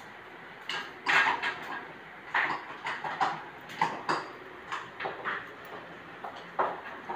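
Combi blind headrail knocking and clicking against its wall brackets as it is pushed up and snapped into place: a dozen or so irregular sharp clacks, the loudest about a second in.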